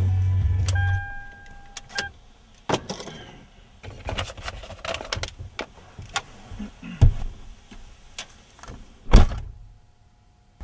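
A vehicle's engine running and cutting off about a second in, followed by a short steady electronic beep. Then come scattered clicks and knocks of someone getting out, a thump about seven seconds in, and a loud car door slam about nine seconds in.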